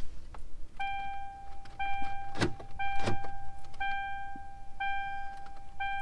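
2003 Mercury Grand Marquis's dashboard warning chime sounding a steady tone about once a second, now that the battery is boosted by jumper cables. Two sharp clicks come near the middle.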